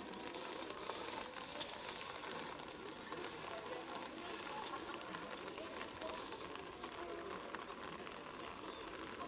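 Steady outdoor hiss of a rugby field's ambience, with faint distant voices calling now and then.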